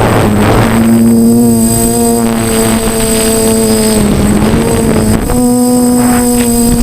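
DJI F450 quadcopter's brushless motors and propellers whining steadily in flight over a rush of wind noise. The pitch dips about four seconds in and steps back up after about a second.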